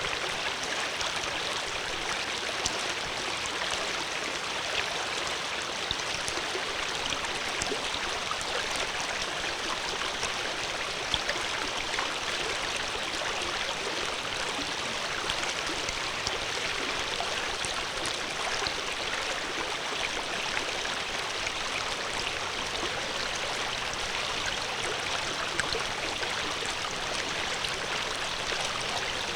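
Flowing water, a steady rushing of a stream with small splashes and trickles scattered through it.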